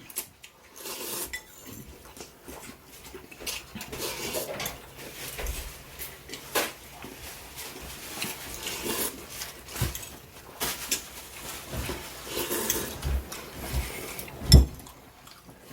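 Utensils clinking and scraping against a pot and bowls while ramen is served and eaten: scattered irregular clinks, with one louder knock near the end.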